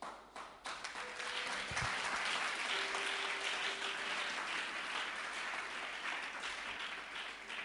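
Congregation applauding: a steady wash of clapping that swells in within the first second and thins out near the end.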